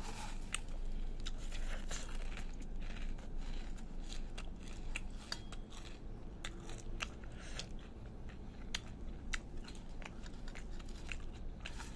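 Puffed rice crackling and crunching as fingers mix and crush it together with a syrup-soaked gur rasgulla in a steel bowl: many small, irregular clicks.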